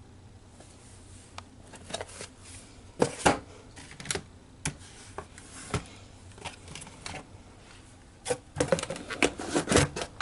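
Keys of a Toshiba Libretto 100CT mini-laptop keyboard clicking: scattered single presses, then a quick run of key presses near the end.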